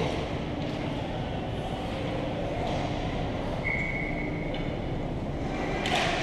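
Steady ice rink noise during a youth hockey game, with a single steady tone lasting about a second midway through and a sharp crack near the end.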